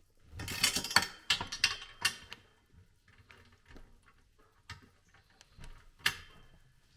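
Metal clinks and clicks of bolts and hardware being fitted and tightened by hand on a snow plow's push tubes. They come in a dense cluster over the first two seconds, then as scattered single clicks, with a sharper one about six seconds in.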